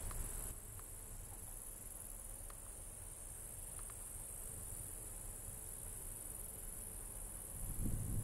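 Steady high-pitched chirring of crickets in a summer meadow, over the low rumble of a distant diesel locomotive approaching with a freight train. The rumble swells louder near the end.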